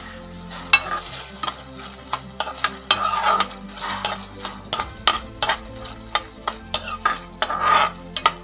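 A metal slotted spatula stirs and scrapes dried fruit and cashews through hot caramelised sugar syrup in an aluminium kadai, with frequent sharp clinks of metal on the pan and a sizzle from the bubbling syrup.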